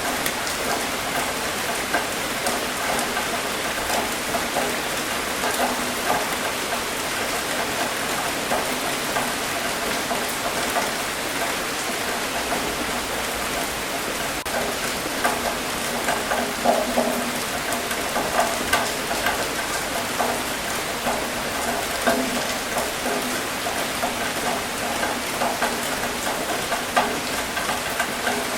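Steady rain falling, with many individual drops ticking against a surface and a few louder drops scattered through.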